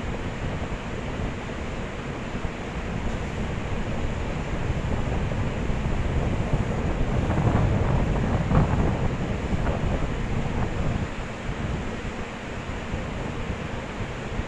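A train passing by: a rushing noise that swells to its loudest about eight seconds in, then fades away.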